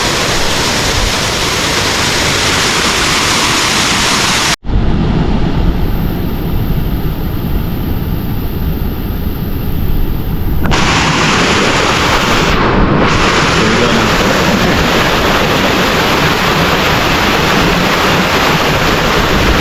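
Waterfall roaring, a loud, steady rush of falling water. About four and a half seconds in it cuts out abruptly and comes back duller for about six seconds before the full hiss returns.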